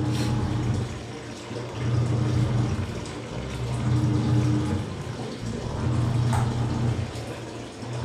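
Samsung Wobble 6 kg top-load washing machine agitating water during its final rinse. The motor hum and water churning swell and fade in regular pulses about every two seconds as the pulsator drives the load back and forth.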